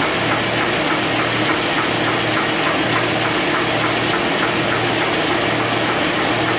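Paper-processing machine running steadily, a fast even clatter of several strokes a second over a constant mechanical whir and low hum.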